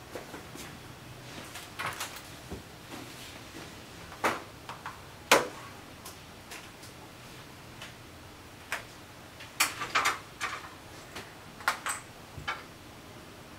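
Irregular clicks, taps and knocks of hands handling things at a desk around a laptop, the sharpest a little over five seconds in and a quick cluster near ten seconds.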